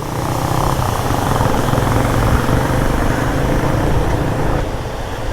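Motorcycle engine running steadily, under a steady hiss.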